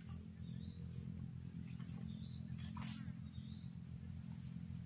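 Insects droning steadily on one high note over a low background rumble, with a few short faint bird chirps and a brief rustle about three seconds in.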